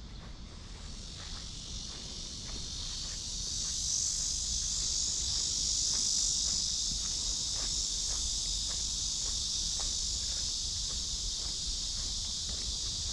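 Chorus of cicadas shrilling in a steady high drone that swells over the first few seconds and then holds, with faint footsteps of someone walking beneath it.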